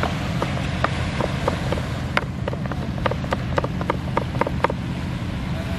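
Knife chopping on a cutting board: a run of sharp knocks, about three a second and quickening slightly, over a steady low background rumble.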